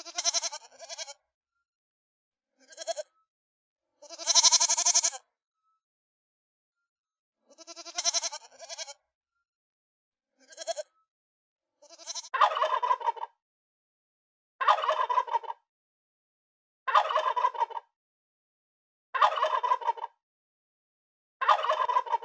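Young goats bleating about six times at uneven intervals, the longest and loudest about four seconds in. A turkey then gobbles five times, about two seconds apart.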